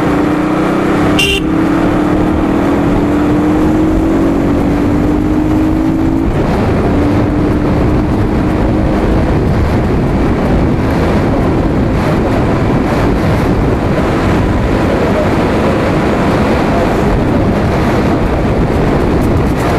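KTM RC 200's single-cylinder engine running on the move, its pitch rising slowly as it gathers speed, under heavy wind noise on the microphone. The engine note fades into the wind about nine seconds in.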